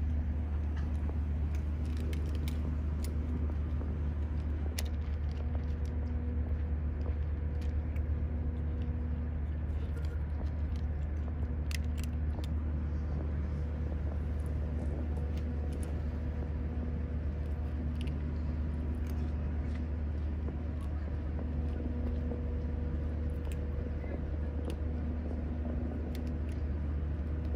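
A steady low machine hum throughout, with a fainter tone in it that comes and goes every few seconds. Faint scattered clicks over it, from kittens crunching dry kibble.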